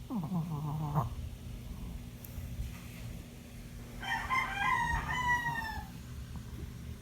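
A rooster crows once, about four seconds in, the call lasting under two seconds and dropping in pitch at the end. In the first second a short pitched sound slides steeply down.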